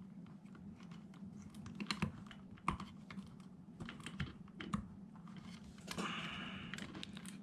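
Scattered light clicks and taps of hands handling the power supply's switch and wiring, pulling heat-shrink tubing back off the soldered terminals, with a short rubbing sound about six seconds in, over a faint steady hum.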